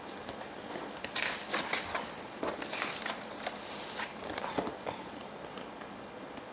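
Paper pages of a picture book being turned and pressed flat by hand: a few brief rustles and soft crinkles, the loudest about a second in.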